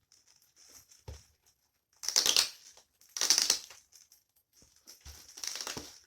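Parcel packaging being torn open by hand: plastic wrapping and tape ripped and crinkled in three loud rips, with small rustles and clicks between them.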